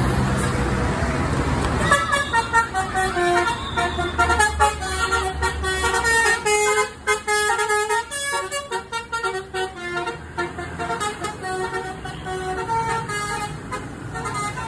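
A tour bus's multi-tone musical horn (an Indonesian "telolet" horn) playing a quick tune of short stepping notes from about two seconds in, growing fainter toward the end. Before the tune, the bus's engine is heard running as it pulls past.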